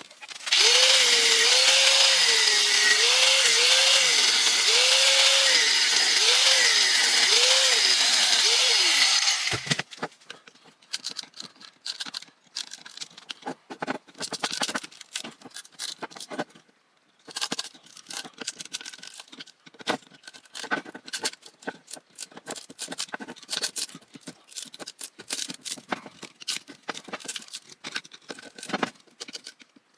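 A handheld power tool runs hard for about nine seconds, its pitch dipping again and again as it bites into the fan motor to get at the copper, then stops. After that come scattered clicks and taps of metal parts being worked by hand.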